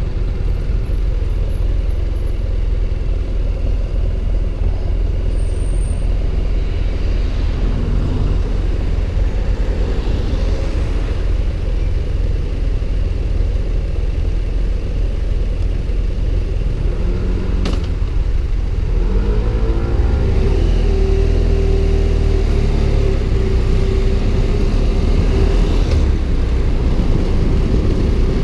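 BMW F 700 GS parallel-twin engine running at low speed in traffic, over a constant low rumble. About two-thirds of the way through, the engine note rises as the bike accelerates, then holds steady.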